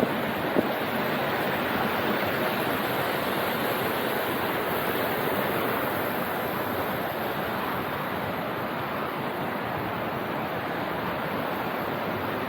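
Steady rushing of a mountain stream, an even wash of moving water with no rise or fall.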